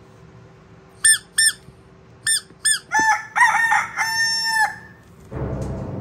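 Rubber chicken squeak toy squeezed: a few short squeaks, a quicker run of them, then one longer squawk held for most of a second. Dark background music starts near the end.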